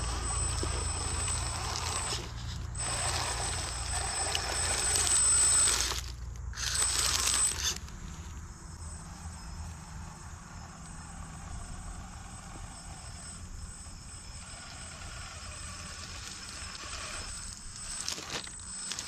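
RC rock crawler's brushless motor with a high, thin whine, cutting out briefly twice, over the crunch of its tyres on dry leaves. About eight seconds in it all drops to a faint background, and the whine and crunching come back near the end.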